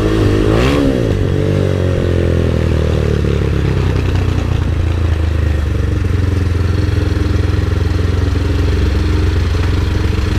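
MotorStar Explore 250 v2 motorcycle engine on its stock exhaust, blipped once about half a second in, then dropping back to a steady idle.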